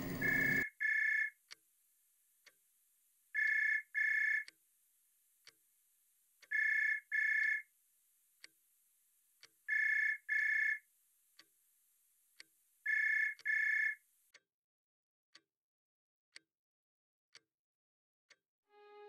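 A telephone ringing in double rings, five pairs about three seconds apart, then stopping unanswered. A clock ticks about once a second throughout.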